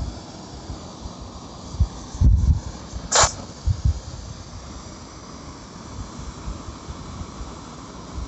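Wind buffeting the microphone in low, irregular thumps over a steady rushing noise, with one short, sharp hiss about three seconds in.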